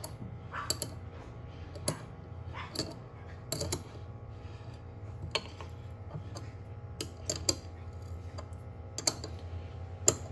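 Ratcheting combination wrench clicking in short, irregular strokes as the nuts on a brake proportioning valve bracket are tightened, over a steady low hum.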